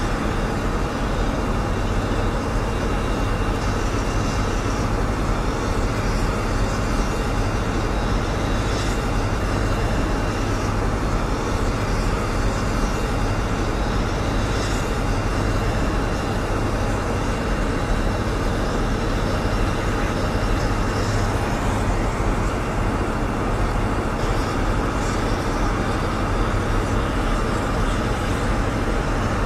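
Truck-mounted airfield ground power unit running steadily, supplying power to the parked jet through its cable: a constant low engine drone with a faint steady high whine above it.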